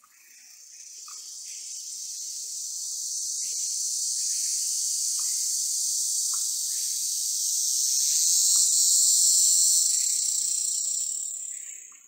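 Insects buzzing in a high-pitched, even hiss that swells over the first few seconds, holds loud, then drops away sharply near the end, with a few faint short chirps underneath.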